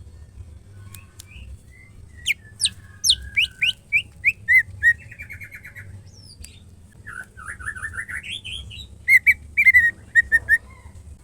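Female white-rumped shama calling to males: a run of sharp down-slurred whistles and chirps, a quick trill, then after a pause a rising series of notes and a burst of loud repeated notes near the end.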